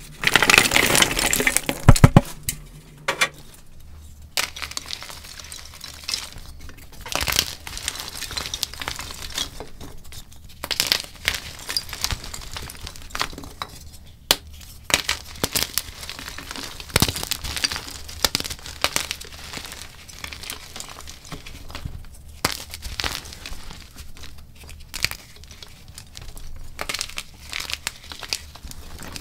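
Chunks of dyed gym chalk (magnesium carbonate) being crushed and crumbled: a dense run of crunches and crackles, loudest in the first couple of seconds, then steadier crumbling with sharper snaps here and there.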